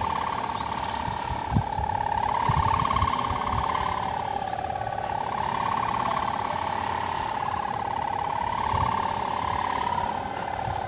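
Kite hummer (sendaren) on a 3-metre bow strung with mika plastic film, droning as one steady note high on a flying pegon kite, its pitch rising and falling slowly with the wind. A few brief low thumps come through underneath.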